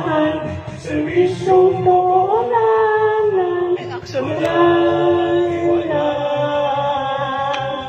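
A young girl singing into a corded microphone: long held notes that glide up and down, with a short break about four seconds in.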